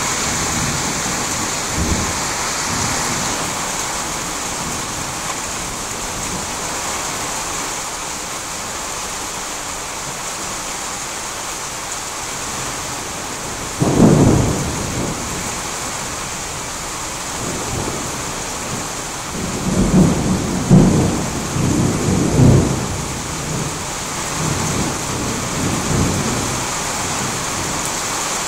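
Rain of a thunderstorm falling steadily, with a sudden loud clap of thunder about halfway through and a longer rolling rumble of thunder a few seconds later, in several surges.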